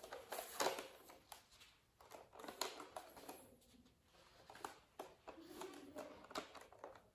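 Plastic Nerf foam-dart blaster being handled: scattered light plastic clicks and soft rustling as it is turned over in the hands.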